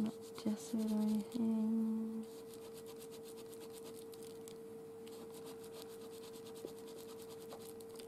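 A crumpled paper tissue is rubbed quickly back and forth over a painted paper journal page, making a fast scratchy scrubbing that starts about two seconds in and lasts several seconds. Before it, a voice hums two short notes, and a faint steady hum runs underneath throughout.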